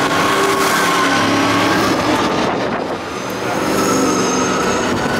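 V8 engines of Late Model stock cars running at racing speed as the cars pass through the oval's turn, one car going by close. The engine noise dips briefly about three seconds in, then rises again.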